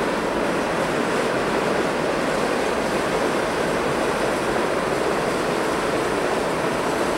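Union Pacific freight train of tank cars rolling across a steel girder bridge: a steady rumble and rush of wheels on rail, with no breaks or distinct clicks.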